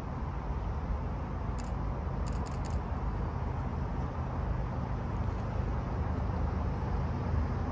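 Low, steady rumble of an approaching diesel freight train's locomotives, still out of sight, growing slightly louder toward the end. A few faint high chirps sound briefly about two seconds in.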